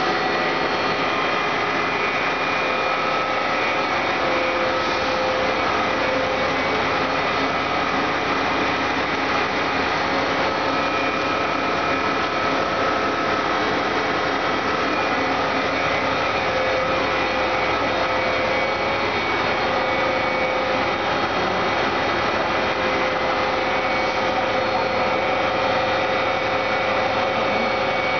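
Foam production line machinery running: a steady mechanical hum and hiss with several constant whining tones.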